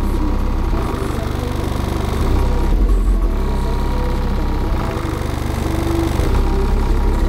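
Two 15-inch Team Resilient Sounds subwoofers on a Soundigital 12K amplifier playing music very loud, heard from outside the car: heavy, deep bass with a steady buzzing rattle. The owner says the amplifier leaves the subwoofers underpowered.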